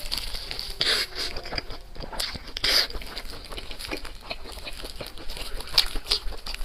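Close-up mouth sounds of a person chewing and biting food, wet and crunchy, with louder crisp bites about a second in, near the three-second mark and near the end.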